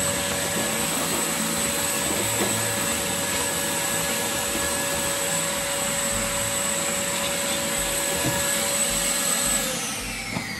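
Vacuum cleaner running steadily with a high whine, its hose sucking up shavings from the floor. Near the end it is switched off and the motor winds down with a falling whine.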